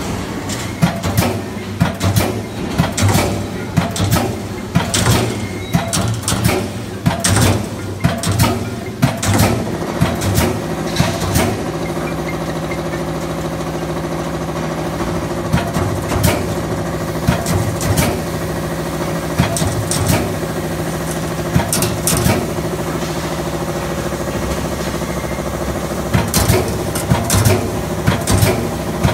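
Hydraulic CNC turret punch press punching sheet metal: a run of sharp punching strokes, one or two a second, over the steady hum of its hydraulic power unit. About twelve seconds in the strokes stop and only the hum is left, and the punching starts again near the end.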